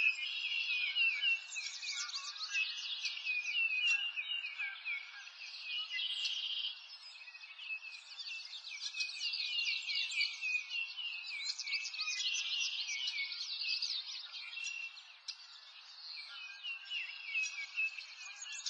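Many birds chirping and singing at once, a continuous mix of quick high chirps and short trills over a faint background hiss.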